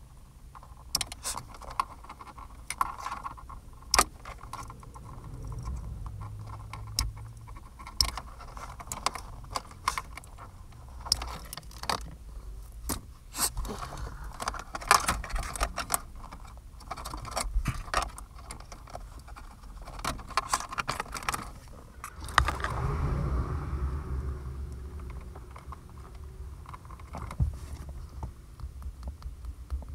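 A bundle of old stereo wires and plug connectors being handled and snipped with wire cutters: irregular sharp clicks, rattles and rustling, with a low rumble for a few seconds past the middle.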